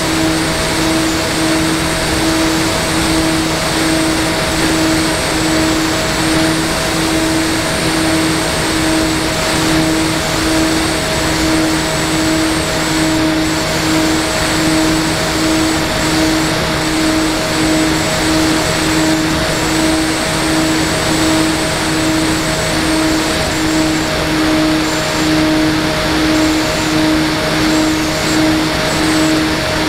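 Electric motor and propeller of a model aircraft in flight, running at a steady speed: an even hum that pulses gently a little under twice a second, with a faint high whine over a strong hiss.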